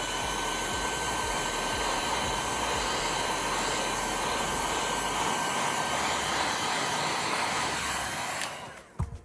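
Heat gun blowing steadily, its fan noise carrying a faint high motor whine, then cutting off with a click near the end.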